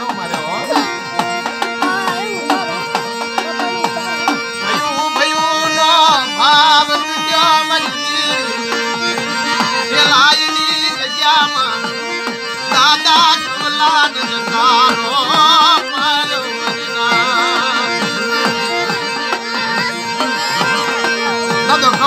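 Harmonium playing a steady held drone under a man singing a Gujarati devotional Mataji song in a wavering, ornamented line, with a hand drum keeping time.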